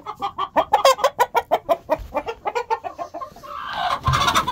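A flock of chickens clucking in a fast, rowdy string of short calls. About four seconds in there is a louder, harsher burst with a low thump.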